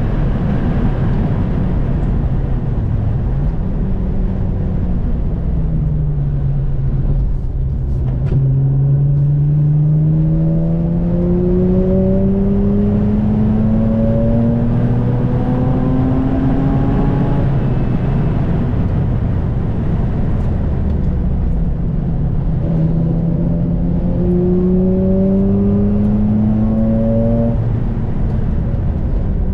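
Mazda RX-8's twin-rotor Wankel rotary engine pulling hard under acceleration, its pitch climbing steadily through one long pull, dropping, then climbing again in a second pull, over a heavy low rumble.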